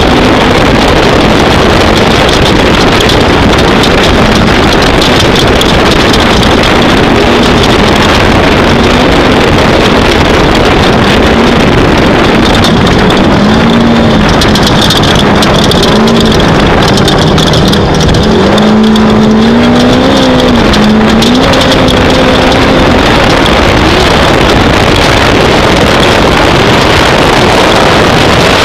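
Off-road race vehicle running hard: a loud, steady rush of noise, with an engine note rising and falling as it revs, clearest in the middle.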